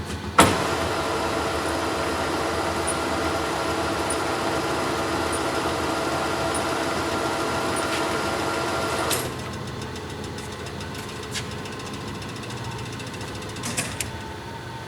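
Monarch Model K gear-head engine lathe: a sharp clunk as the spindle is engaged, then the headstock gearing running with a steady whine for about nine seconds. It then stops abruptly, leaving a lower hum and a few clicks near the end.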